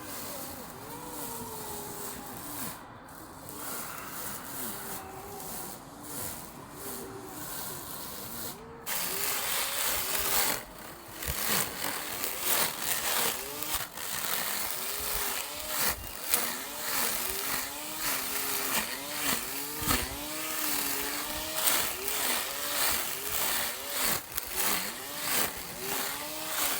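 Music with a singing voice throughout. About nine seconds in, a loud steady whir like a small lawn mower's motor and cutting starts and runs on under the music.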